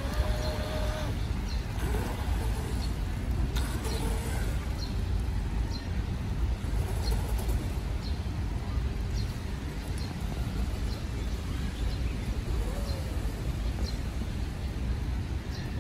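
Outdoor urban ambience: a steady low rumble of distant traffic, with faint short high bird chirps about once a second.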